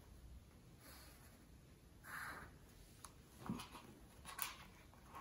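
Faint, short scratches of a graphite pencil drawing straight lines on sketchbook paper along a clear plastic ruler.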